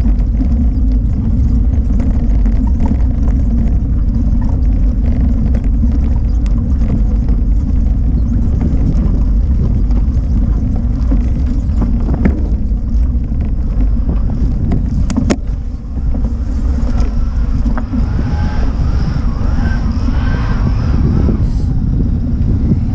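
Steady low rumble of wind buffeting the microphone of a camera riding on a moving bicycle, mixed with the drone of tyres on rough, cracked asphalt. A single sharp click comes about fifteen seconds in.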